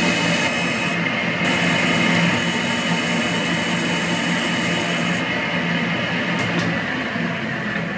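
Metal lathe running with a turning tool cutting the outer diameter of a scrap-plate gear blank, a steady machine hum under the hiss of the cut. The hiss of the cut eases about a second and a half in and again about five seconds in, with a couple of faint clicks near the end.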